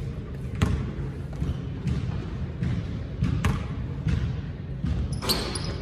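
A basketball bouncing on a gym court: a few separate sharp thuds over a steady low background rumble, with a brief high-pitched squeak near the end.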